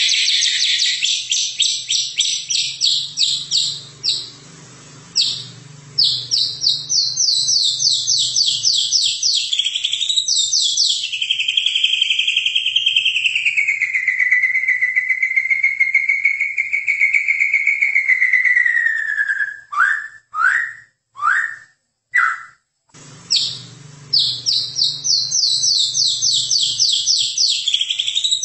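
White-rumped shama singing: fast runs of sharp repeated notes, several a second, broken near the middle by one long wavering whistle that slides down and levels off. A few slurred notes with short gaps follow before the fast runs start again.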